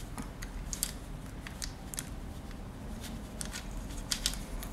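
Irregular light clicks and rustles of fingers handling rubber bands and a small plastic C-clip on the pegs of a plastic loom board.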